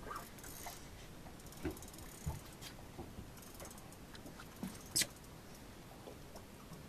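Faint mechanical clicking and ratcheting from a fishing reel as the hooked shark is worked up to the boat, with scattered knocks and one sharp click about five seconds in.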